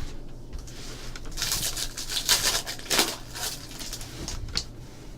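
Hands handling trading cards and foil pack wrappers: a run of soft scraping, rustling and crinkling, busiest in the middle.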